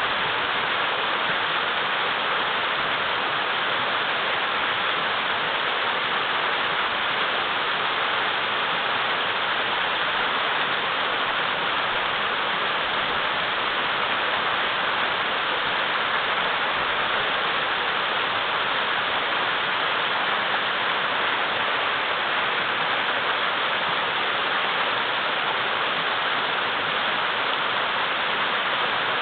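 A wide mountain river flowing over and around large boulders: a steady, even rush of water with no breaks or changes.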